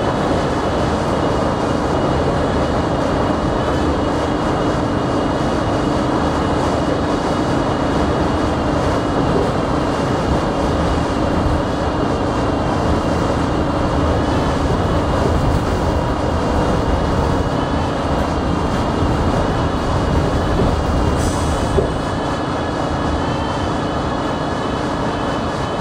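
Steady buzzing inside an R68 subway car, heard as steady tones over the car's continuous rumble. A low part of the buzz fades out about halfway, and a brief hiss comes about three-quarters of the way through.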